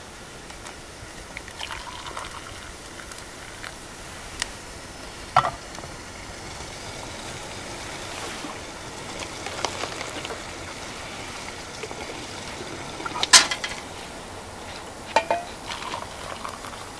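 Hot water being poured from a small camp cook pot into a plastic measuring cup and on into a freeze-dried meal pouch, over a steady faint hiss. Several sharp clinks of the pot's handle and the cups being handled, the loudest about 13 seconds in.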